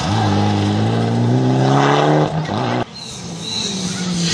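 Rally car engine accelerating hard out of a gravel corner, its pitch rising steadily for nearly three seconds. Then the sound drops sharply and carries on more quietly at a steady pitch.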